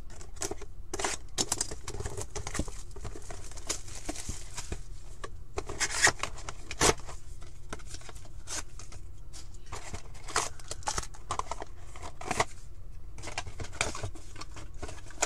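Shrink wrap being cut and peeled off a cardboard box of trading cards with a box cutter, then the box being opened and its foil packs handled: crinkling plastic, rustles and sharp clicks over a low steady hum.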